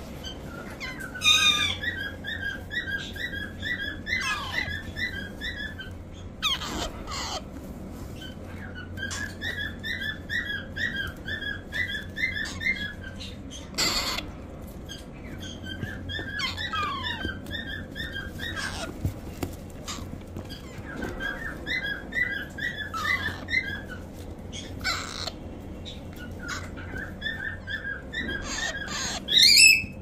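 Parakeet chicks begging: repeated runs of rapid, chattering calls, each lasting two to three seconds, with sharp falling squawks between them and a loud rising squawk near the end.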